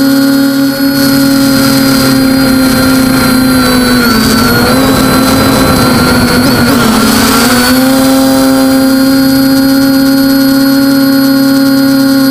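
TBS Discovery quadcopter's brushless motors and propellers whining steadily, loud and close as picked up by its onboard camera. The pitch dips and wavers from about four to seven seconds in, as the throttle changes, then settles back to a steady whine.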